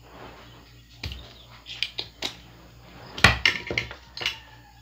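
Irregular sharp clicks and taps of hand tools on a CRT TV's circuit board while the memory IC is being desoldered, the loudest about three seconds in.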